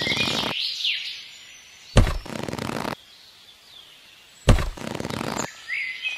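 Two sudden thumps, each followed by about a second of rustling, about two and a half seconds apart. Birds chirp in the background.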